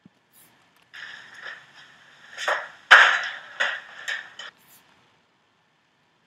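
A few seconds of rustling, scuffing noise with one sharp knock in the middle, the loudest moment.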